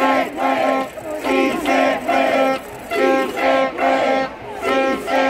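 Rhythmic music with a short held note repeating about twice a second and voices singing along.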